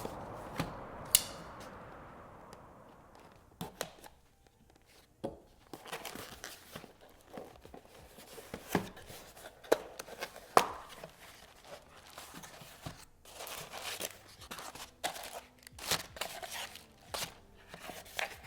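Packaging being opened and handled by hand: crinkling and tearing, with scattered sharp clicks and knocks as pieces of hardware are moved and set down. A steady hiss fades out over the first few seconds.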